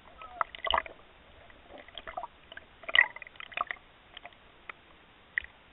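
Scattered clicks and small sloshing water sounds, picked up by a camera under the water, with the strongest burst about three seconds in.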